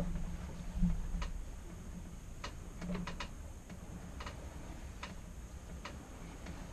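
Sailboat under way: a steady low rumble of wind and water, with about eight irregular sharp ticks from something aboard.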